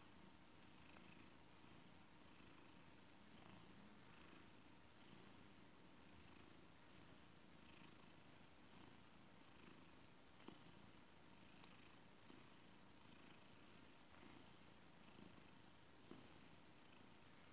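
Blue British Shorthair cat purring faintly and steadily, the purr rising and falling about once a second as it breathes, while it kneads a soft blanket; a few tiny clicks come through in the second half.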